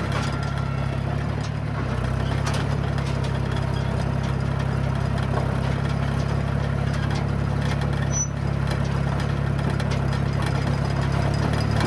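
John Deere crawler bulldozer's diesel engine running steadily, heard up close from the machine, with a light clatter over the low engine note.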